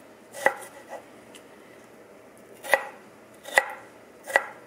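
Chef's knife chopping through raw peeled potato onto a wooden cutting board: four sharp knocks at uneven intervals, with a fainter tap about a second in.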